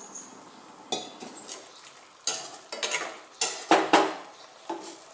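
Metal spoon stirring mushroom fry in a stainless steel kadai, scraping and clinking against the pan in about six irregular strokes, over a low sizzle from the pan, to which a little water has just been added.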